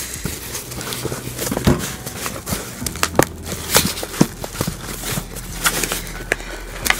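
Corrugated cardboard box flaps and packing tape being pulled and picked at by hand: irregular rustling, crinkling and sharp little clicks and cracks as a shipping box is pried open.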